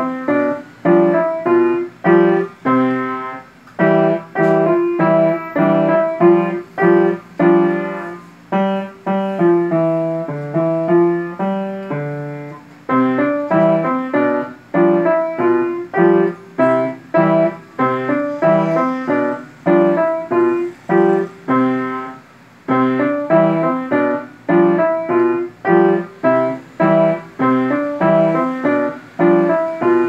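Upright piano played by a young child: a simple beginner piece in a steady rhythm of single notes and chords, each struck and left to fade, pausing briefly twice.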